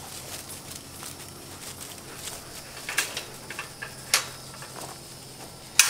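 Outdoor background with a faint steady low hum and a few short sharp taps or clicks, the loudest near the end.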